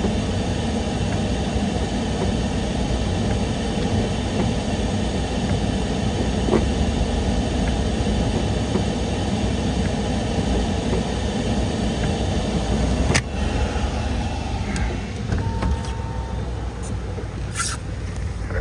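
Floodwater rushing steadily under a bridge, a continuous low rushing noise, with a sharp click about thirteen seconds in.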